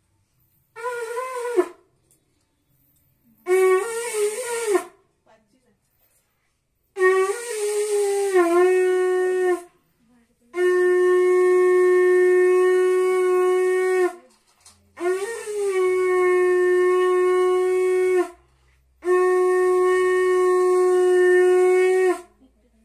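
Conch shell (shankha) blown in six blasts, a loud, horn-like tone: the first two short and wavering, the last four long, mostly steady notes of about three seconds each, some bending in pitch as they start. It is the ritual conch call of a Hindu rite.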